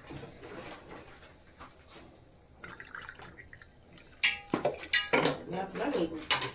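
Water poured from a plastic bottle into a glass, for about a second and a half near the end. A sharp, ringing clink comes just before the pour, and a second one as it starts; quieter handling sounds come before them.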